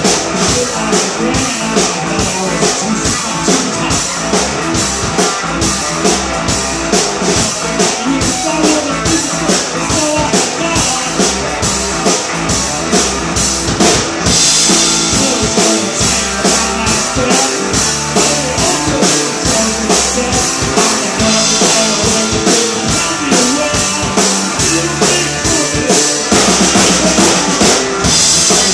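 A live rock band playing loudly: electric guitar, electric bass and drum kit keeping a steady, driving beat. The cymbals wash out more heavily for stretches in the middle and near the end.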